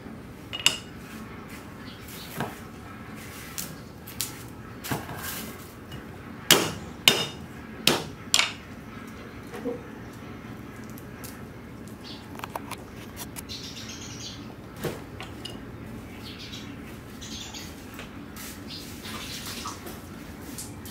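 Cleaver and knife knocking on a thick wooden chopping block as garlic is cut: scattered single knocks, with a run of loud ones about six to eight and a half seconds in.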